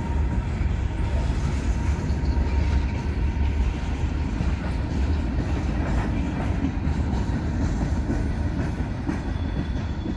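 Freight train rolling past, a steady low rumble of wheels on rail with faint scattered clicks.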